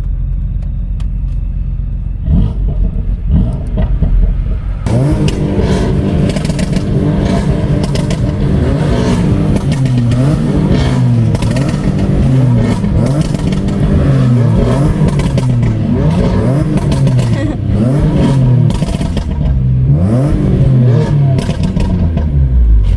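BMW M3 race car engine: a low rumble at first, then from about five seconds in it revs hard, its pitch rising and falling again and again.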